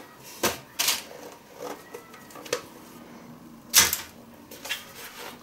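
A metal spoon knocking and scraping against a stainless steel Thermomix mixing bowl as sticky date dough is scraped out into a lined loaf tin: a handful of sharp taps, the loudest about four seconds in.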